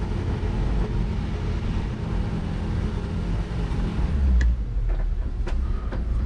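Engine of a small open wooden passenger cart running as it drives up a sloping driveway. Its hum shifts and gets stronger about four seconds in, and a few sharp clicks and knocks follow near the end.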